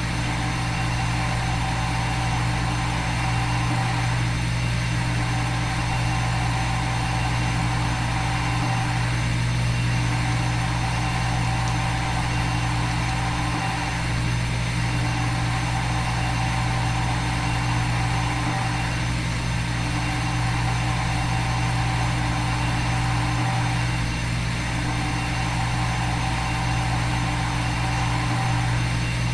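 Simulated CNC machine sound from a machining simulator: a steady motor and spindle hum with a small hitch about every five seconds.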